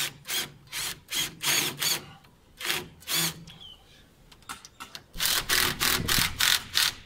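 Power drill working into a face-brick wall at the awning bracket, run in about ten short bursts, then after a pause a longer, louder run near the end.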